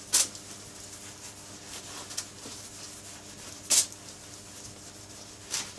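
Latex-gloved fingers rubbing renovating cream into the leather of a briefcase: three short rubbing strokes, one just after the start, one a little before four seconds, and one near the end.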